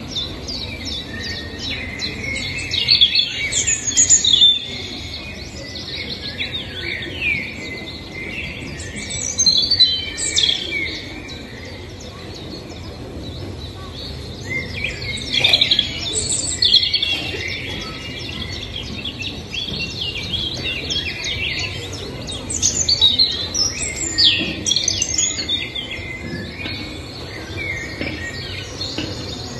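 Birds chirping and singing: quick, twittering calls that gather into louder clusters every several seconds.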